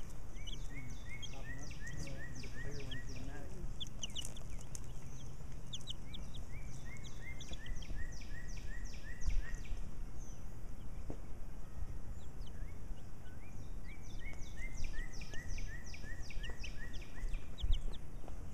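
Birds chirping: three runs of quick, repeated high notes, each a few seconds long, over steady outdoor background noise.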